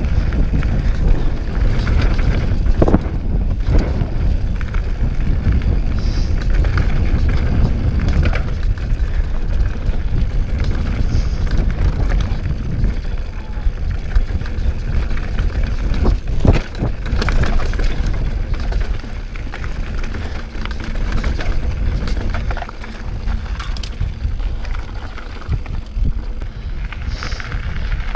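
Wind rushing over an action camera's microphone as a Scott Voltage 720 mountain bike rolls fast down a rocky dirt trail, with tyre noise on dirt and stones, the bike rattling, and sharp knocks over bumps. The rush eases a little near the end.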